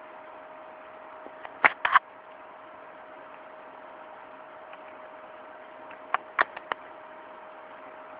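Sharp clicks in two short clusters, three of them about two seconds in and four more a little after six seconds, over a steady hum and hiss.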